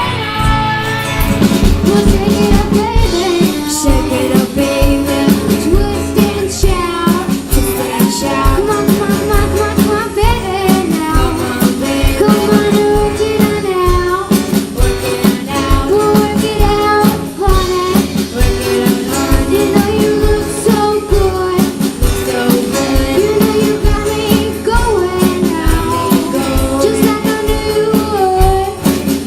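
Young rock band playing live: a singer over drum kit and guitar, with a steady beat.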